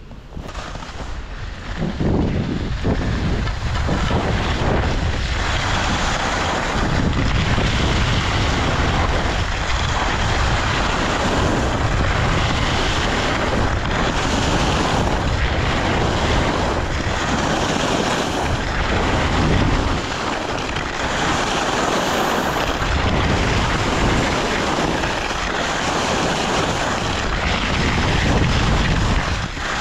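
Wind buffeting the microphone and skis scraping over the snow during a downhill ski run; the noise gets much louder about two seconds in, as the skier picks up speed.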